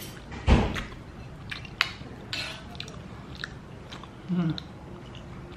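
A person eating from a bowl with a spoon: chewing, with scattered light clicks of the spoon against the bowl and one thump about half a second in. A brief 'mm' near the end.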